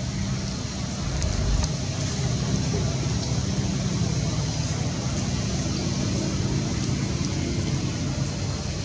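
Steady low rumble of outdoor background noise, like road traffic, with a brief low bump about a second and a half in.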